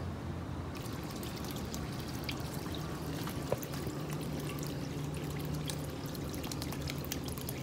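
Water trickling out of the top of a vertical PVC pipe and splashing into a plastic tub, pushed up by a small Eheim Compact On 600 submersible aquarium pump at its full flow setting; at this pipe height it only manages a weak trickle. The trickle begins under a second in and runs steadily, with scattered small drips.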